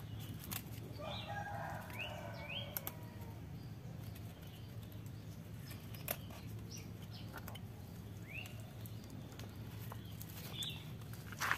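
Small knife cutting and scraping the fibrous husk of a green ivory coconut bonsai, with a few sharp clicks scattered through. Birds chirp in short rising calls in the background over a steady low hum.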